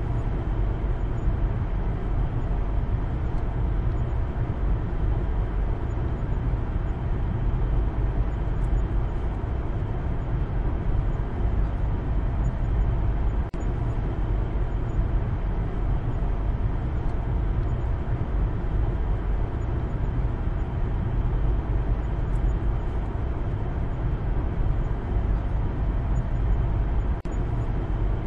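Steady engine and road rumble heard inside the cabin of a moving Maruti Suzuki Baleno, heaviest at the low end, with two brief dips, one about halfway and one near the end.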